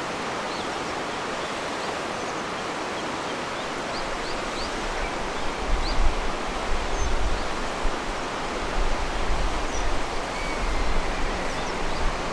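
Steady rush of a river running over rocky shallows, with faint short bird chirps. A low, uneven rumble joins from about five seconds in.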